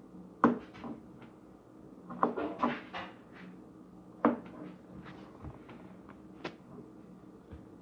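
A knife knocking on a cutting board as fruit is cut: about half a dozen sharp knocks at uneven intervals, with a faint steady hum underneath.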